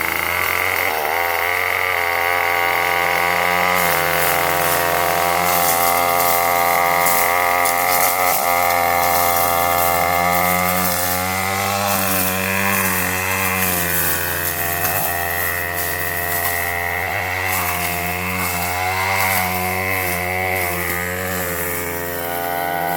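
Gas weed eater fitted with a chainsaw-chain cutting attachment, running at high speed and cutting through heavy brush. The engine pitch wavers up and down as the blade takes load, with scattered rasping hits from the chain tearing into the brush.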